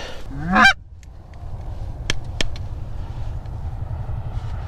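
A short goose honk sweeping sharply up in pitch right at the start, followed by a steady low rumble with two faint clicks about two seconds in.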